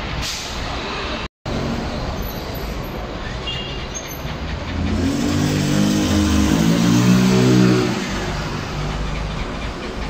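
Steady street traffic noise, with a short dropout in the sound just over a second in. About halfway through, a vehicle engine revs up and runs loudly for a few seconds, then falls away about two seconds before the end.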